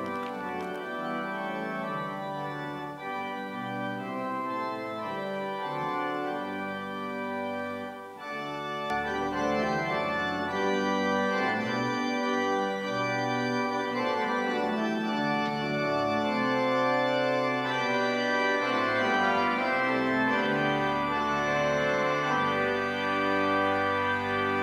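Church organ playing a postlude in held chords over a moving bass line; it grows fuller and louder about eight seconds in.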